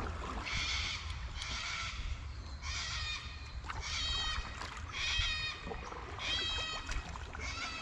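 A bird calling over and over, about one short pitched call a second, over a steady low rumble.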